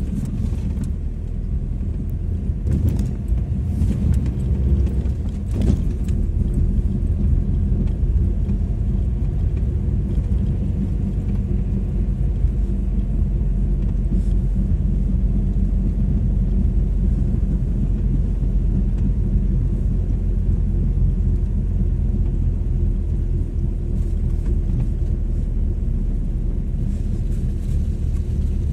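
Steady engine and running rumble heard from inside a vehicle's cab as it drives across wet sand flats, with a few knocks and rattles in the first several seconds.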